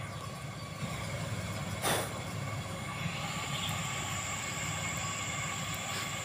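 Engine running steadily with a low rumble and a faint whine, with one short sharp knock about two seconds in.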